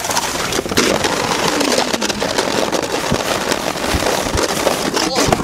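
Fast slide down an icy snow chute: a loud, continuous crackling scrape of the rider sliding over packed ice and snow. A brief shout comes about five seconds in.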